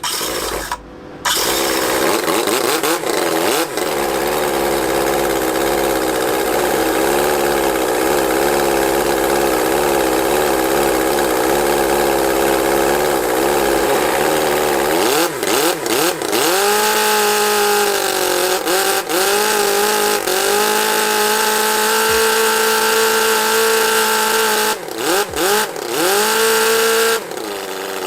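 Miniature 17.5cc four-cylinder OHV model engine running, steady with a slightly wavering pitch for about fifteen seconds. It is then revved up and down several times, with short throttle drops in between.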